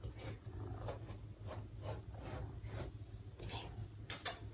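Brush strokes through a Maine Coon cat's long, damp fur: a quick run of short swishing strokes every third to half second, with two sharper, louder strokes about four seconds in.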